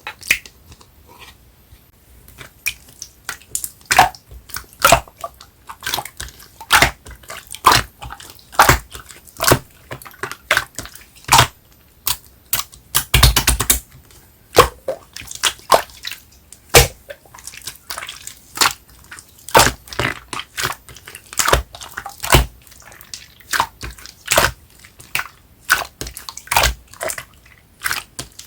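Clear slime being pressed and worked by hand, giving a loud, irregular run of sharp wet clicks and pops, about one or two a second, with a denser burst of crackling about halfway through.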